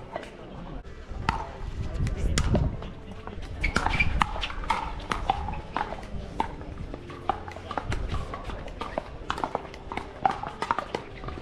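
Pickleball paddles striking the ball in a rally: a string of sharp pops at irregular intervals.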